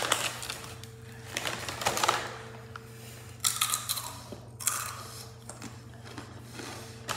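Crunchy Takis Fuego rolled tortilla chips being chewed, the crunching coming in several irregular bursts with short pauses between, loudest a little past the middle.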